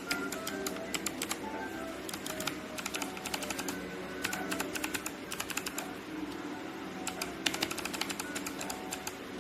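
Mechanical keyboard keys clicking in quick runs of typing, several bursts with short pauses between, over background music with a simple melody.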